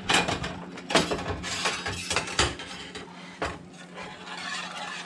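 Wire whisk scraping and clicking against the inside of a skillet as it stirs a mushroom pan sauce, in irregular strokes with a few sharper clacks.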